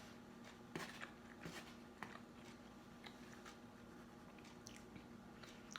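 Near silence with faint eating sounds: quiet chewing and a few soft, scattered clicks over a low steady hum.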